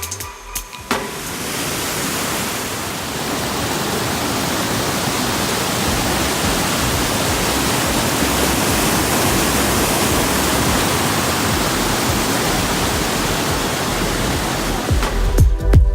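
Waterfall, a steady dense rush of falling water. Beat-driven music cuts out about a second in and comes back near the end.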